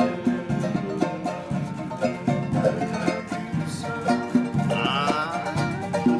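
Live plucked-string music, strummed on a ukulele-type instrument in a steady rhythm.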